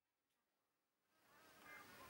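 Near silence, then faint outdoor background sound fading in about a second and a half in.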